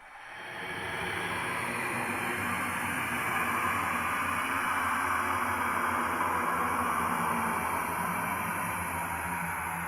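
Steady rushing, hiss-like noise that swells in over the first second and then holds even, with a low hum underneath, part of a haunted-forest horror sound effect.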